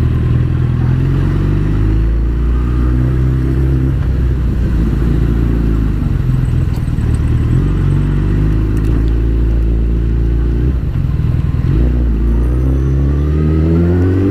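Suzuki Hayabusa's inline-four engine running at low speed, its pitch shifting with the throttle; near the end the revs climb steadily as it accelerates.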